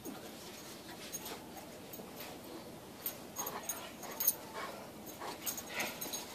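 Central Asian Shepherd Dog making short vocal sounds as it play-wrestles, with a cluster of brief ones a few seconds in and another near the end.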